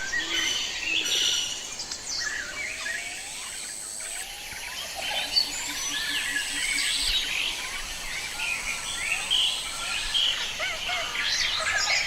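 Many forest birds calling and chirping over one another in a steady chorus of short, overlapping calls.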